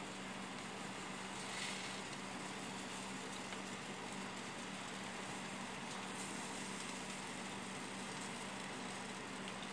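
Oven running: a steady low hum under an even hiss, with a brief rustle about two seconds in.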